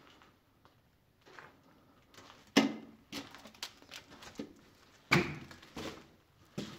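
Footsteps on a hard floor, a run of uneven knocks with two louder steps about two and a half and five seconds in.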